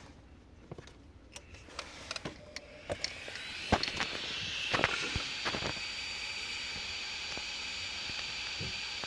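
3D printer being switched on: a few clicks, then its cooling fans spin up about three seconds in and run steadily with a thin high whine.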